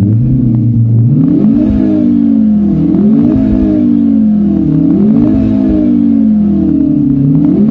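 Renault Clio RS 200 Monaco GP accelerating through the gears. The engine note climbs in pitch and drops back about five times, like quick upshifts. It is heard as the synthesized engine sound of the car's R-Sound Effect system.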